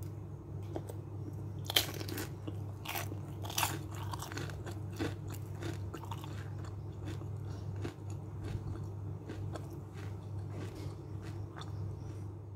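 Crispy fried banana fritters being bitten and chewed: irregular crisp crunches, the loudest about two seconds in, over a steady low hum.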